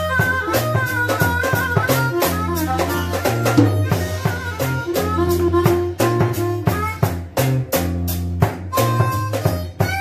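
Live blues band playing: a harmonica played into a vocal microphone carries the melody over a drum kit and a steady low bass line.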